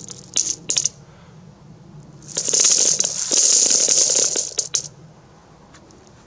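A handful of Russian ruble coins poured from a gloved hand onto a heap of coins in a galvanized metal bucket, clinking. A few single clinks in the first second, then a dense jingling cascade of about two seconds, ending with a couple of last clinks.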